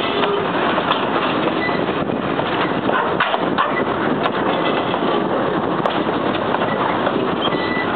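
Train running on the track: a steady rumble and clatter with scattered clicks and rattles.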